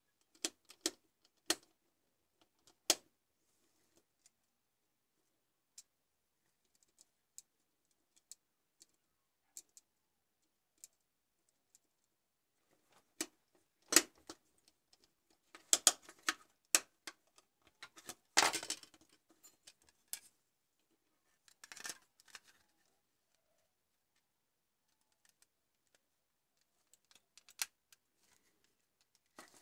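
Plastic clicks, taps and knocks from handling a computer mouse as it is put back together: scattered sharp clicks, with a busier run of knocks and a short scrape in the middle.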